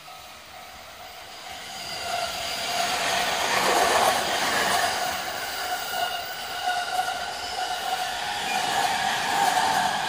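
E217 series electric commuter train approaching and passing close by, growing louder over the first three or four seconds, then a steady run of wheels on rails as the cars go past.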